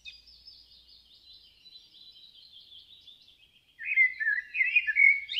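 Birdsong: a dense run of high chirping, joined by louder, lower chirps about four seconds in.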